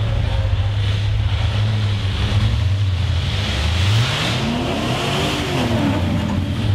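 Rock buggy engine running steadily, then revving up about four seconds in and dropping back down a second or two later.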